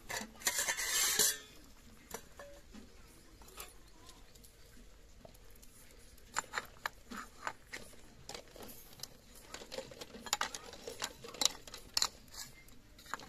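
Metal kitchenware clatter: a loud, noisy scrape about a second long near the start as the steel plate covering the pot is lifted, then a ladle clinking again and again against a steel pot as boiled eggs are stirred and scooped from the water.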